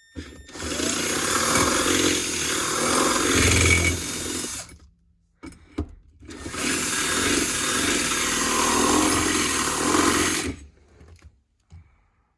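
Power drill boring two holes through the car's floor for the shifter box base plate: two runs of about four and a half seconds each, with a short break between.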